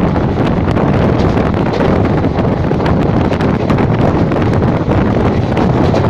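Wind buffeting the microphone over the steady running noise of a passenger train moving at speed, heard from its open doorway.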